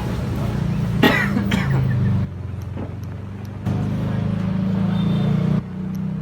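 A person coughing, two harsh coughs about a second in, set off by a first inhale from a vape. A steady low engine-like hum runs underneath and drops away for about a second in the middle.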